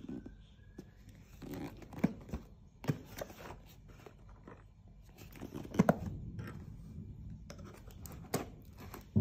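Cardboard shipping boxes being handled and turned over: irregular scrapes, rustles and a few sharp knocks, the loudest about six seconds in.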